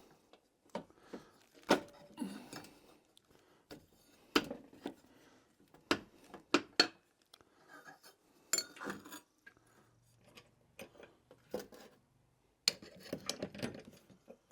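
Metal parts and tools clinking and knocking as lawn mower parts are handled during reassembly: scattered sharp clicks and clanks at irregular intervals, with quiet gaps between.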